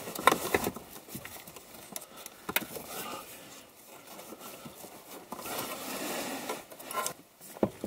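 Handling noise as the factory head unit's metal case is worked loose from its mount behind the dash: scattered clicks and knocks with stretches of rubbing and scraping of metal against plastic.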